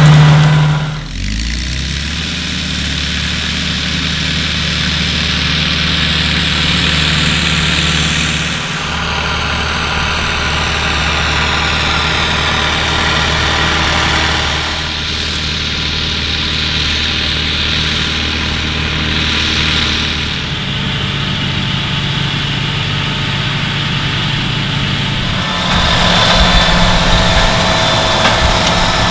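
New Holland TS110 tractor's diesel engine running steadily, heard in a string of short clips with abrupt cuts between them. Near the end it gives way to a louder John Deere tractor pulling a cultivator.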